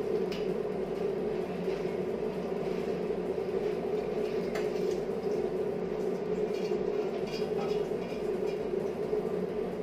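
A steady hum fills the kitchen throughout. Over it, soaked basmati rice is tipped off a steel plate into a steel pot of water, with a couple of faint taps of steel against steel.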